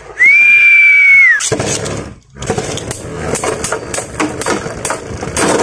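A loud, steady high tone lasting about a second near the start. After a short pause, Beyblade spinning tops whir and clash in a plastic stadium dish, with rapid irregular clicks and scrapes of the metal and plastic tops striking each other and the stadium wall.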